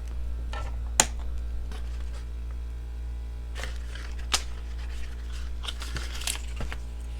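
Clicks and light rustling of a knife box and its packaging being handled, with a sharp click about a second in and a few more in the middle and near the end, over a steady low hum.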